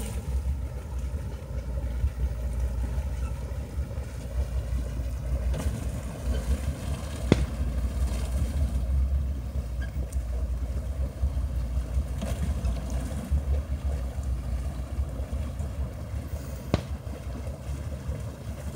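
Wind buffeting the microphone, an uneven low rumble, with two sharp clicks, one about 7 seconds in and one near the end.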